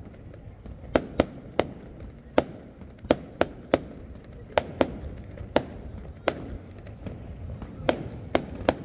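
Fireworks display: a string of about fourteen sharp bangs from exploding shells, going off irregularly, some in quick pairs and threes.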